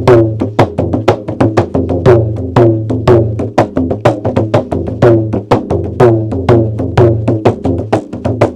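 Bodo kham, a large traditional drum of wood and buffalo leather, played in a fast steady rhythm of about five strokes a second. Each stroke rings with a tone that dips slightly in pitch, over a sustained low boom.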